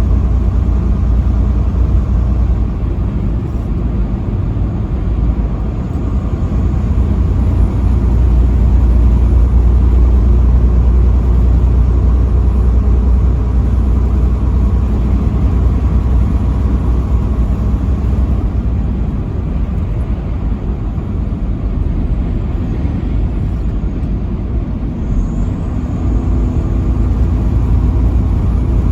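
Steady low rumble of a vehicle's engine and tyres at highway speed.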